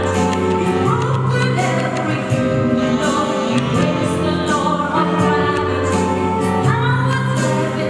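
Figure-skating free program music with singing voices, played over the ice rink's sound system.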